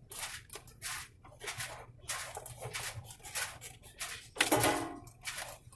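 Repeated rustling and scraping of packaging and items being handled, one or two strokes a second, with a short, louder pitched sound about four and a half seconds in.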